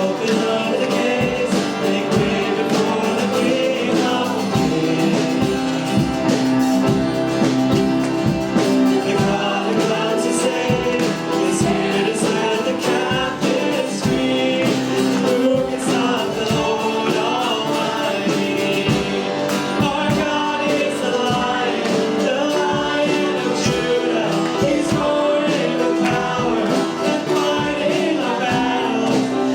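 Worship band music with singing, a congregational song played live with guitar and voices.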